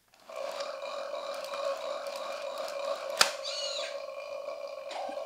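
A sound effect played from a Tizzy Tongues plush toy's built-in voice box: one long, steady, fixed-pitch sound. About three seconds in there is a sharp click, and right after it a short high chirp.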